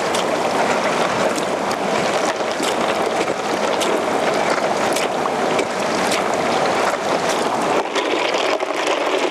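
Water splashing into a cooler packed with loose ice, a steady rush of water with many small clicks and splashes.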